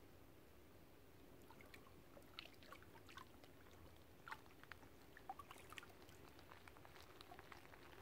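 Faint, scattered small splashes and drips of shallow lake water as a fish is released from the hands and swims off, over a low steady hiss.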